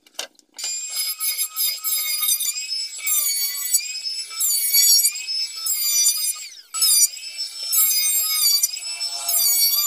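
Electric hand planer running with a high motor whine, its pitch sagging and recovering again and again as it is pushed along a wooden panel in repeated passes.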